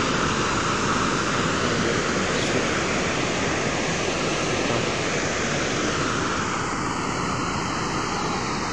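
Muddy floodwater pouring over a concrete weir and cascading through a breached section of it: a steady rushing of churning water.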